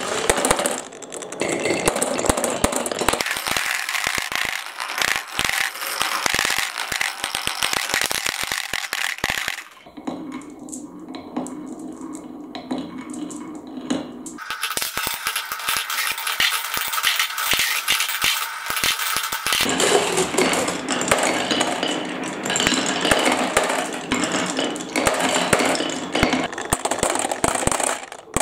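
Marbles rolling down wooden marble-run tracks and clicking and clinking against each other and into a clear plastic container already full of marbles: a dense, continuous clatter. About a third of the way through it drops to a quieter, smoother rolling for a few seconds, then the clatter returns.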